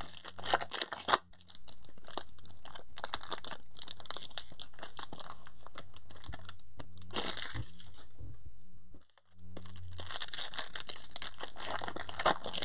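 Foil wrappers of Bowman Chrome trading-card packs being torn open and crinkled by hand: crackly rustling in uneven bursts, with a short pause about nine seconds in, over a steady low hum.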